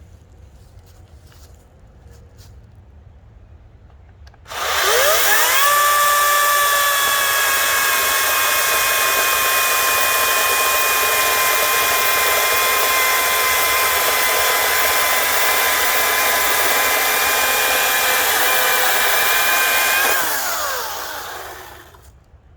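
Ryobi 40V brushless cordless chainsaw starting up about four and a half seconds in, spinning up within a second to a steady high electric whine. It runs for about fifteen seconds, then winds down and stops near the end. A few faint clicks come before it starts.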